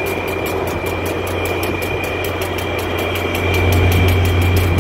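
Diesel locomotive engine running: a steady low rumble with a thin, high steady whine above it, growing louder about three and a half seconds in.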